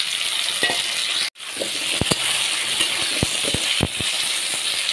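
Papaya and potato pieces sizzling in hot mustard oil in a metal kadai, with a metal spatula clinking and scraping against the pan several times in the second half. The sizzle cuts out briefly about a second in.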